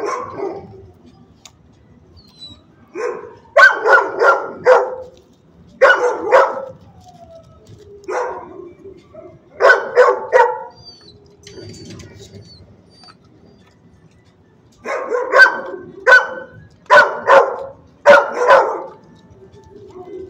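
Dogs barking in quick runs of two to five barks, with pauses of a few seconds between runs and a longer lull around the middle.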